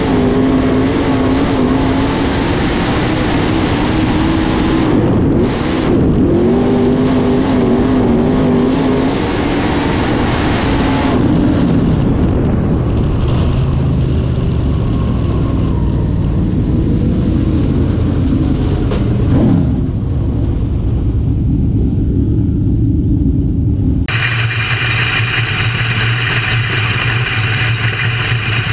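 UMP dirt modified's V8 racing engine heard on board at speed on a dirt oval, its pitch rising and falling as the throttle comes on and off. About 24 seconds in the sound switches abruptly to a lower, steadier engine note heard from inside the cockpit.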